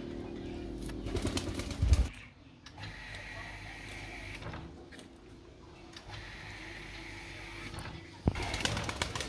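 Kitchen knife scoring a whole fish on a wooden chopping board: a run of knocks and cuts, the loudest about two seconds in. A quieter stretch follows, and the knocks start again near the end.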